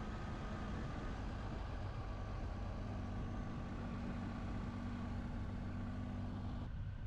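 Triumph Tiger 800 XC motorcycle's three-cylinder engine running at a steady pace under way, a constant drone over a hiss of riding noise. Near the end the higher hiss drops away abruptly.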